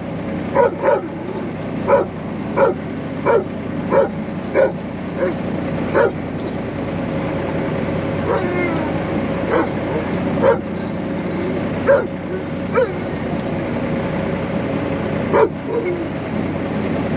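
A dog barking in short, quick yelps, fast and regular over the first few seconds and then more scattered, with some whining in between, over the steady drone of the moving truck.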